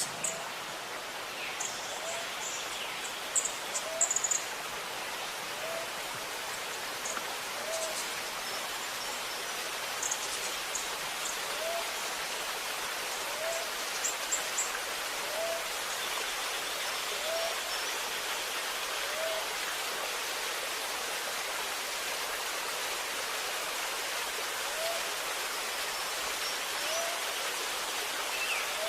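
Running, gurgling water makes a steady rushing hiss. Over it, birds give short high chirps in scattered clusters during the first half, and a lower, short call repeats about every two seconds.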